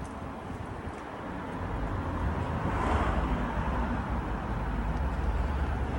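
Motor vehicle running with a low rumble, its noise swelling about three seconds in and then holding steady.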